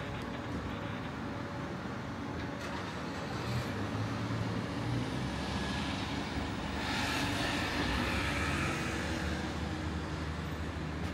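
Road traffic: a steady engine rumble, with a vehicle passing that is loudest about seven to nine seconds in.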